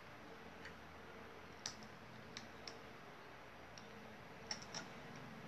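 Light plastic clicks from a small articulated action figure being handled and posed, its joints and parts snapping into place: a handful of scattered faint clicks, two close together near the end, over a low room hiss.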